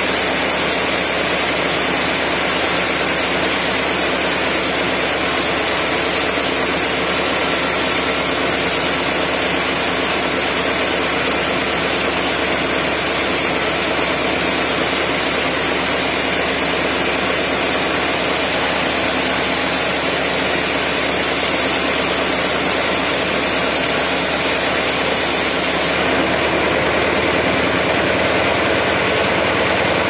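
Sawmill running steadily, its saw cutting through a teak log as the carriage is pushed along. The high hiss thins out about four seconds before the end.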